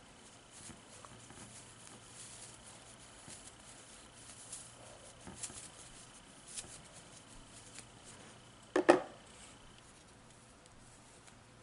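Faint rustling and small clicks of a doll-size cotton bodice being handled and turned right side out with tweezers, with a sharp double knock about nine seconds in.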